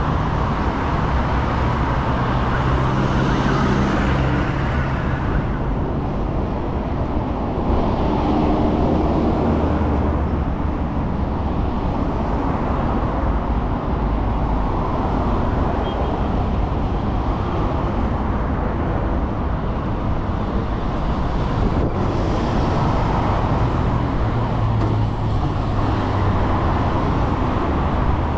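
Steady street traffic: car engines running and vehicles passing close by, a continuous mix without a break.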